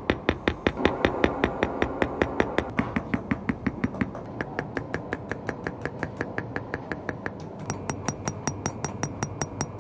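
Small hand hammer tapping gold sheet metal in a fast, even rhythm, about six light metallic strikes a second, each with a short bright ring.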